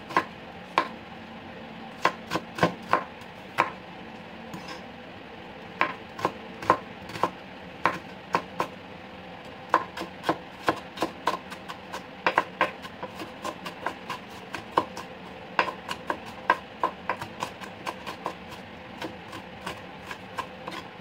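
Chef's knife chopping small red onions on a bamboo cutting board: sharp, irregular knocks of the blade striking the board. They come sparsely at first and quicken to a run of two or three a second from about halfway.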